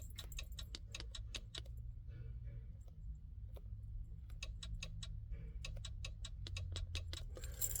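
Rapid, irregular light clicks in two runs, one in the first second and a half and another from about four to seven seconds in, with a quieter spell between.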